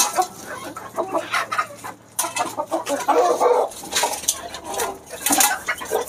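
Native (deshi) chickens clucking, with short rustling and knocking sounds in between.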